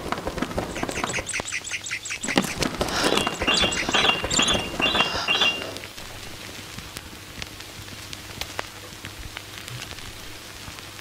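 Bird-like chirping calls, short repeated high notes over a rapid run of clicks, for about five seconds. They drop off about six seconds in to a faint crackle with scattered clicks.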